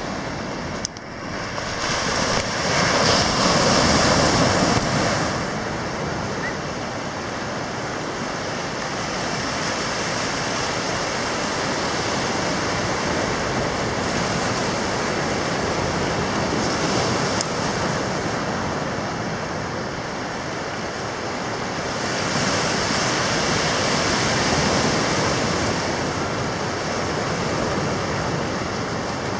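Ocean surf breaking on a beach: a continuous wash of waves that swells louder a few seconds in and again near the end.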